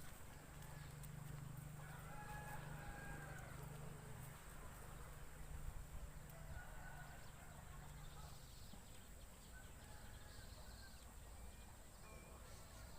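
Faint bird calls: a few short calls spaced several seconds apart, over a low steady hum that fades out about two-thirds of the way through.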